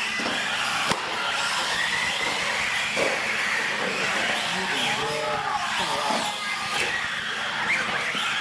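Radio-controlled trucks racing on a bare concrete floor: motors whining up and down and tyres scrubbing, in a big echoing room, with a sharp knock about a second in.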